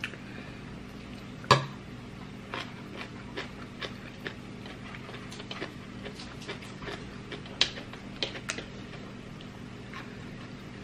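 Close-up mukbang eating sounds: a run of small clicks and smacks from chewing and from a gloved hand handling rice on a plate. One sharp knock about one and a half seconds in, over a low steady hum.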